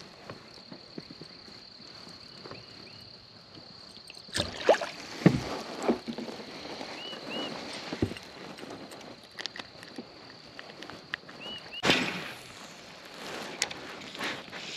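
Knocks and clatter of fishing gear being handled in a plastic Nucanoe Frontier 12 fishing kayak, loudest in a cluster about four to six seconds in and again near twelve seconds. Under it, a faint steady high whine and a few short double chirps.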